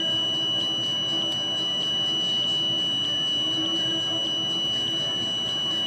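A steady high-pitched electronic tone, with a faint pulse on it about every 0.6 seconds, over a fainter low hum.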